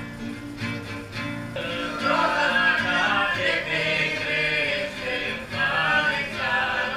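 A group of voices singing a Romanian song together, accompanied by an acoustic guitar.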